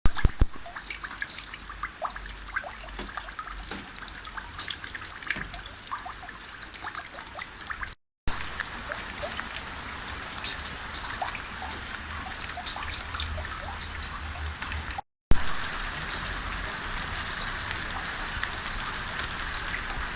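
Rain falling steadily, an even patter with many small drops and drips, broken by two short silent gaps.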